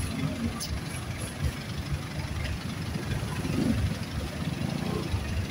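Vehicle engines idling and creeping along in slow traffic: a low, uneven rumble.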